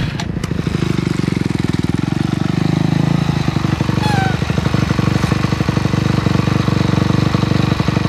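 Dirt bike engine idling close by, a steady rapid firing with no revving.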